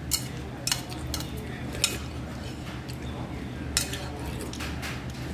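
Thin metal chopsticks clinking against a small white bowl while stirring and lifting kalguksu noodles: a handful of short, separate clinks spread over the few seconds.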